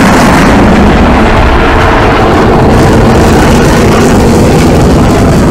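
Jet engine noise from Blue Angels F/A-18 Hornets flying past, a dense steady rush loud enough to overload the microphone. The high hiss eases just after the start and builds again near the end.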